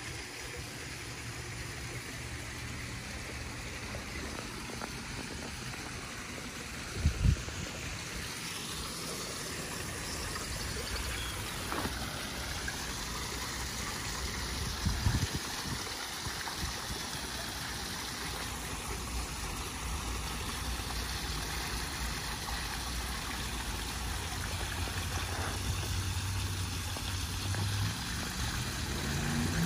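Steady splashing of running water: fresh water pouring into a koi holding pool during a water change, then a small rock waterfall spilling into a pond. Short low rumbles about 7 and 15 seconds in, the first the loudest.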